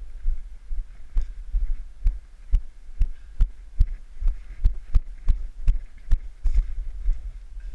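Footsteps of someone walking briskly, about two thuds a second, over a steady low rumble.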